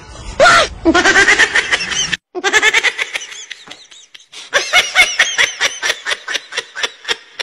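Human laughter in quick rhythmic 'ha-ha' bursts, about four a second, broken by a short gap about two seconds in.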